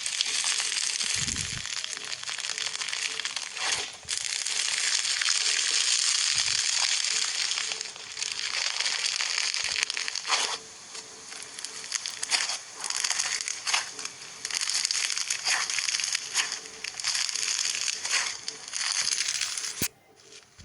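Crunching and crackling of a crisp material being crushed, in long dense stretches with brief pauses, then cutting off suddenly near the end.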